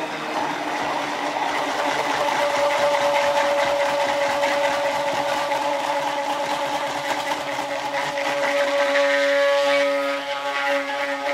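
Immersion stick blender running steadily in a plastic pitcher of cold-process soap batter: a continuous motor whine whose tone shifts slightly about nine seconds in.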